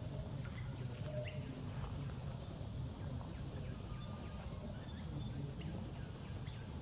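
A bird repeating a short, high, rising chirp every second or so, over a steady low outdoor rumble.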